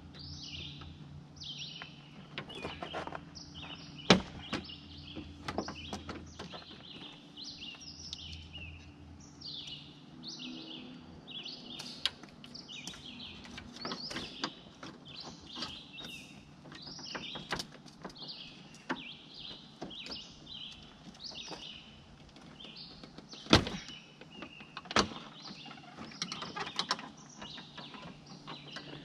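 Hands working loose plastic trim clips and panels at the front of a pickup truck: scattered light clicks and rattles, with a few sharp clacks that stand out, one about four seconds in and two near the end. Songbirds chirp and sing all the way through.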